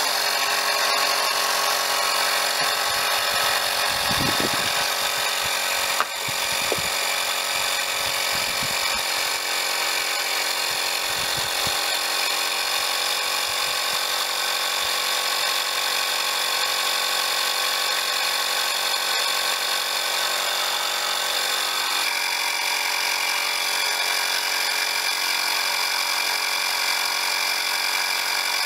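Portable mini air compressor running steadily with a buzzing whine as it pumps air into a car tyre through its hose, the pressure rising. A few low knocks come in the first dozen seconds, with a click about six seconds in, and its tone changes slightly about 22 seconds in.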